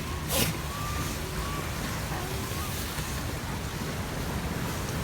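Wharf ambience of wind and sea surf as a steady rushing noise, with a brief louder rush about half a second in and a few faint, distant voices.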